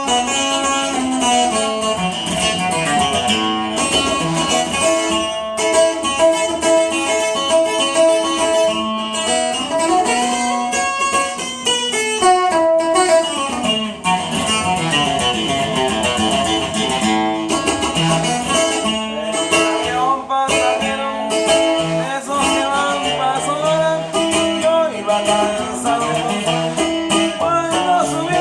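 A handmade Paracho requinto, a small Mexican guitar, played to show off its tone: quick single-note melodic runs mixed with chords, with fast rising and falling runs about ten seconds in.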